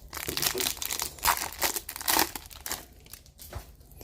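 Plastic-foil wrapper of an Upper Deck hockey card pack being torn open and crinkled in the hands, a quick run of crackles over the first three seconds that dies down near the end.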